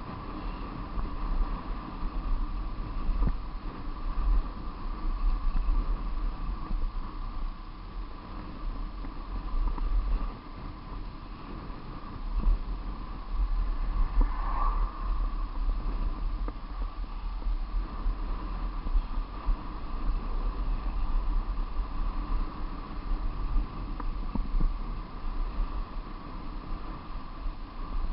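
Wind buffeting the microphone in gusts while riding downhill, over a steady hum of road noise. An oncoming car passes about halfway through.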